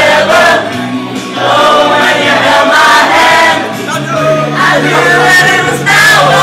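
Karaoke: a group of people singing loudly together over a backing track.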